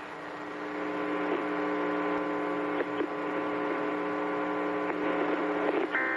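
Steady electrical mains hum, a low buzzing tone with a stack of overtones, carried on the broadcast audio. A few faint clicks sound partway through, and a brief higher-pitched burst of tones comes just before the hum cuts off.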